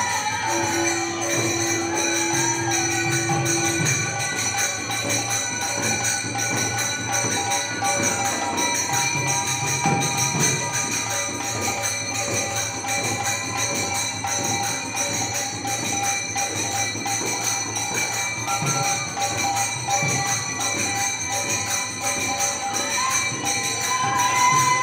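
Bengali kirtan music: khol drums beating a fast, dense rhythm, with small hand cymbals jingling over it and a harmonium holding steady notes.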